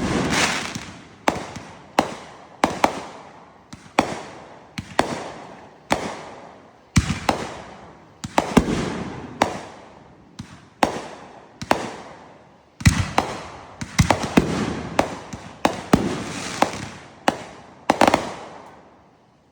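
Fireworks going off in a rapid series of sharp bangs, each followed by a short fading tail, with a couple of brief pauses. The run stops just before the end.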